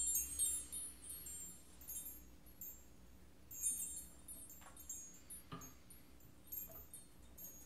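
Small metal-tube wind chime tinkling in short high-pitched bursts every second or two as a cat paws at it and sets the tubes swinging.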